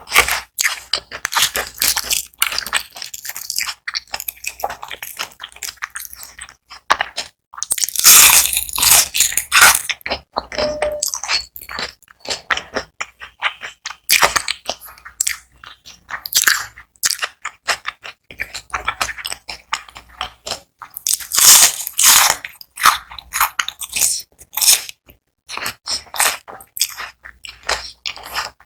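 Close-up chewing of crispy fried onion rings: dense crunching and crackling bites, with louder crunches about eight seconds in and again near twenty-one seconds.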